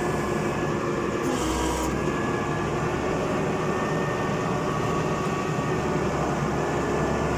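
Forklift's Isuzu 6BG1 six-cylinder diesel engine running steadily under test, no longer misfiring now that the fuel system has been bled. A short hiss comes about a second and a half in.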